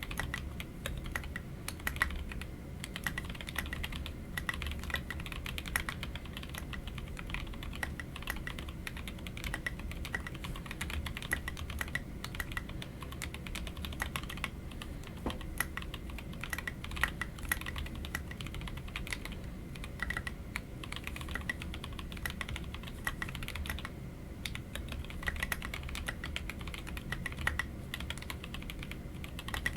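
Continuous typing on a TKC Portico mechanical keyboard with lubed Otemu Sky Blue switches and SA-profile keycaps: a dense, unbroken stream of keystrokes.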